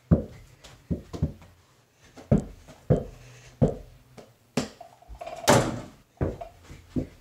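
A string of irregular thuds and knocks: a small ball striking a mini hoop's backboard and rim and bouncing on the floor, about a dozen impacts.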